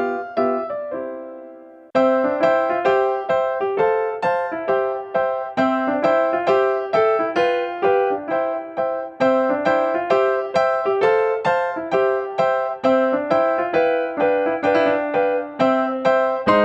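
Background piano music: steady plucked-sounding notes in an even rhythm, with a short pause about a second in where a chord rings out before the tune starts again.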